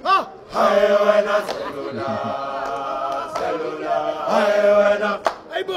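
A group of voices singing a church-style hymn in long held notes. A short sung syllable comes at the start, then one long chord, and a second held note begins about four seconds in.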